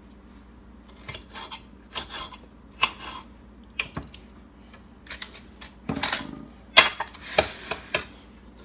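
Irregular light clicks, clatters and scrapes of cut bell pepper pieces being moved about by hand on a glass baking dish. They grow busier and louder in the second half.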